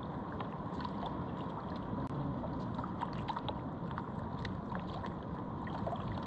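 Water lapping against the hull of a small outrigger boat drifting at sea, with scattered light splashes and knocks.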